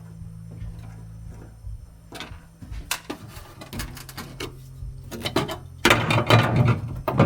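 Scattered clicks and knocks of work on a car body over a steady low hum, then a louder rush of noise about six seconds in.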